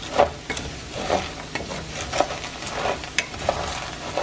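Roasted piñon nuts rattling and scraping in a pan as they are stirred with a wooden spatula, in an irregular clatter, over a light sizzle of salted water cooking off in the hot pan.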